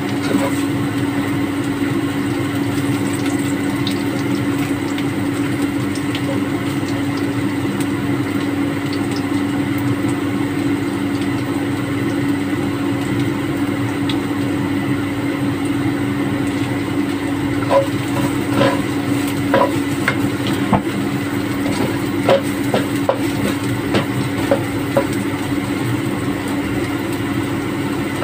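Rice being stir-fried in a nonstick wok: a spatula scraping and knocking against the pan, with a run of sharp taps in the second half, over a steady low hum.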